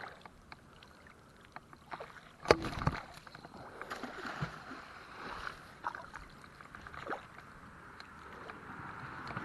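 A magnet-fishing magnet on its rope landing in the water with one loud splash about two and a half seconds in. A few softer knocks and water sounds follow as it settles and is drawn back.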